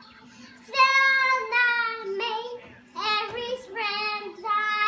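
A four-year-old girl singing in a high voice: two phrases with held notes, the first starting about a second in, the second about three seconds in.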